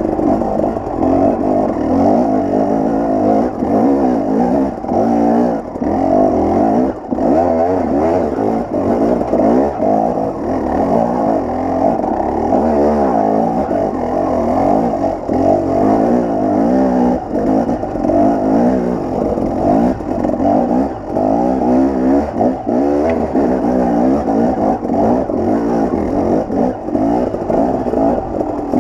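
KTM 300 XC-W's two-stroke single-cylinder engine revving up and down over and over as the dirt bike climbs a steep, rocky trail, with short dips where the throttle is eased.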